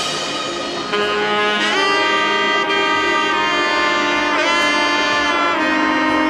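Background music: a melody of long held notes that changes pitch a few times, with a couple of short bends.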